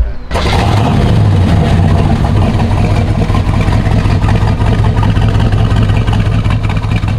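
1964 Chevrolet Corvette's 327 V8 running steadily with a deep exhaust note, cutting in suddenly just after the start.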